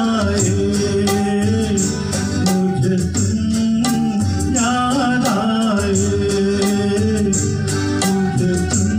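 A man sings a Hindi film song live, accompanied by an electronic keyboard with an organ-like sound, tabla and guitar. Drum strokes keep a steady beat under the melody.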